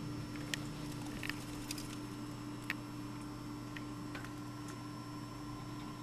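A steady low hum with a handful of light, sharp ticks scattered through it, most in the first three seconds.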